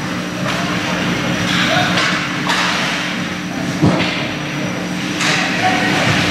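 Ice hockey play: skate blades scraping and carving the ice and sticks clacking on the puck, with a sharp knock just under four seconds in, over a steady low hum of the rink.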